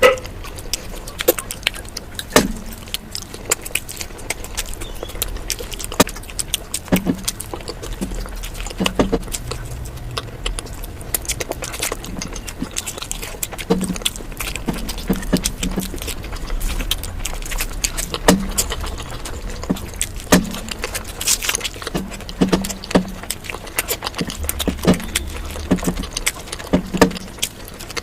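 Close-miked eating sounds: irregular crisp crunching and mouth clicks, some with a soft low thud, from someone chewing food.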